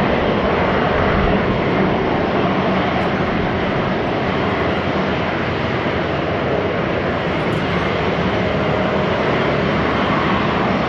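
Airbus A350-900's Rolls-Royce Trent XWB turbofans running at low taxi power as the airliner taxis, a steady jet rush with a faint whine that neither rises nor falls.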